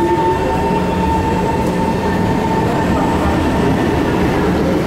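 SMRT C151 electric train pulling away from the platform. The traction motor whine climbs steadily in pitch as it accelerates, over the rumble of the moving cars.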